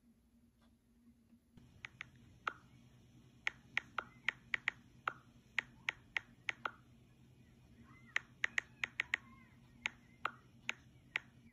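Smartphone touchscreen keyboard clicking as a message is typed, about two dozen sharp, irregularly spaced key clicks starting about a second and a half in.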